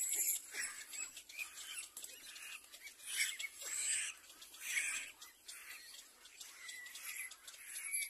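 Little black cormorant chicks in the nest making hissy begging calls in short bursts, several in a row, the loudest a little past the middle.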